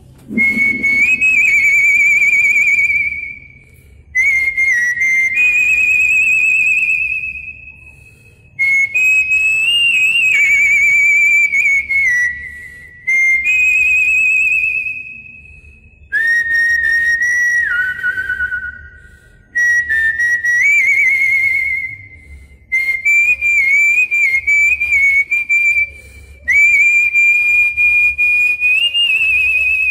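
A man whistling a melody into a handheld karaoke microphone. The tune comes in phrases of two to four seconds with short breaks between them, and the pitch wavers and slides between notes.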